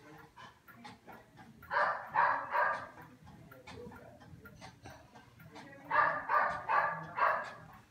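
A dog barking in two bouts of quick barks: three about two seconds in, then four more about six seconds in.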